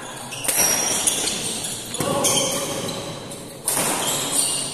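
Badminton rally in a large hall: rackets strike the shuttlecock about three times, a second and a half apart, each hit echoing. Short high squeaks, typical of shoes on the court, come between the hits.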